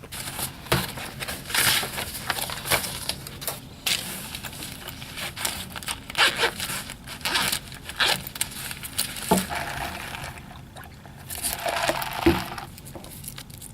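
Irregular rustling, scraping and clicking of things being handled close to the microphone, with a sharper knock about twelve seconds in.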